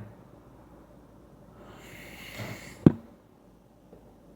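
A person breathing out audibly through the nose, followed by a single sharp click just under three seconds in.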